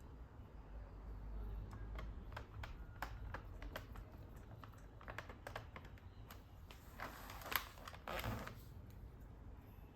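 Plastic keys of a Logitech wireless keyboard clicking under the fingers, a run of irregular clicks that starts about two seconds in, with a louder flurry and some handling rustle near the end.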